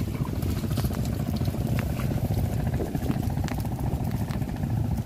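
Scattered light clicks and rustles of a split-bamboo shrimp trap being lifted out of wet grass and tipped over a plastic crate, over a steady low rumble of rain and wind on the microphone.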